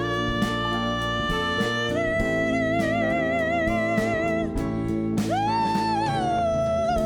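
Live band playing an instrumental fill between sung lines: a lead guitar holds long notes with vibrato, steps up about two seconds in, then slides up to a higher note about five seconds in and eases back down, over steady band accompaniment.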